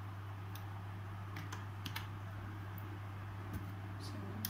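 Laptop keyboard keystrokes: a few irregular taps as values are typed into a form, over a steady low hum.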